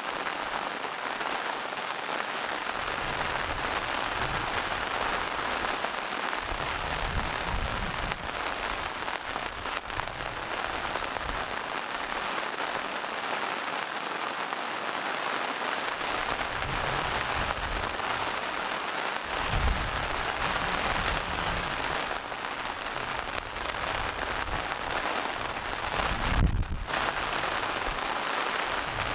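Steady rain falling in a forest, an even hiss of drops on leaves and rocks, with a few brief low rumbles underneath, the strongest near the end.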